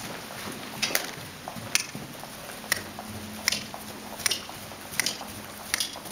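Young horse trotting under a rider on arena sand, with a sharp click about every three-quarters of a second in time with its stride.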